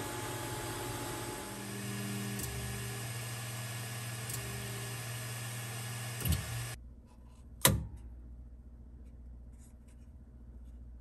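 QIDI X-CF Pro 3D printer running a print, its fans and stepper motors whirring with motor tones that shift in pitch as the head moves. The machine noise cuts off abruptly about two-thirds of the way through, followed by a single sharp click and faint handling sounds.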